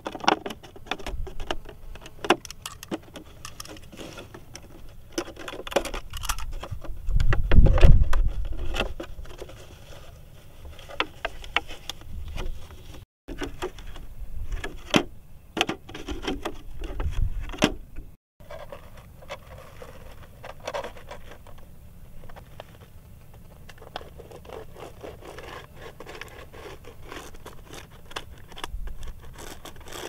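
Clear plastic water bottles being cut with a utility knife and handled: crackling plastic, scrapes and irregular clicks. There is a louder low bump about eight seconds in, and two brief silent gaps around thirteen and eighteen seconds in.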